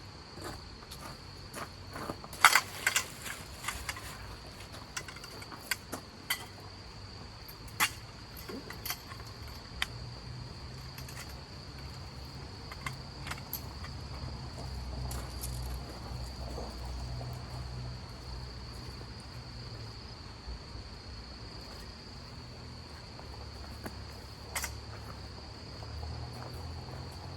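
Crickets chirring in one steady high-pitched trill, with scattered sharp clicks and knocks, loudest in a cluster a few seconds in, over a low rumble.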